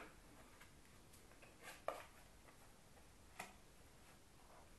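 Faint clicks and handling noises from a hand-held card shooter pistol being reloaded with a playing card, with a sharper click about two seconds in and another a second and a half later.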